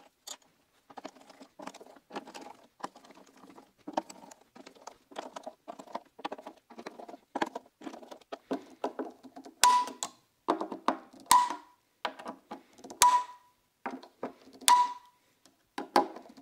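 Background music with a percussive beat: quick clicking percussion at first, then from about ten seconds in a sharp struck hit with a short ringing tone, repeating at an even pace about every second and a half to two.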